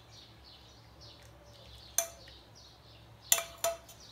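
Steel saucepan and hand tea strainer clinking, three sharp metallic knocks with a short ring, as the pan is drained and lifted off the strainer over the cup. Faint birds chirp repeatedly in the background.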